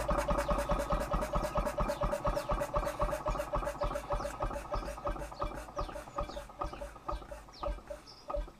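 Vintage single-cylinder stationary petrol engine running down after being shut off: its regular beats slow down and fade over several seconds and stop near the end as the flywheels coast to a halt.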